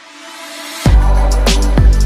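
Electronic background music: a swell builds steadily louder, then about a second in a heavy bass line and drum beat drop in suddenly.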